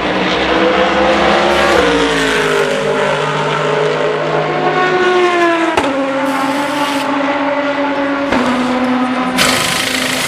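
Race-car engines running at low speed in a pit lane: the pitch falls steadily for about three seconds as a car slows, then holds level at idle. A loud hiss starts near the end, during the wheel change.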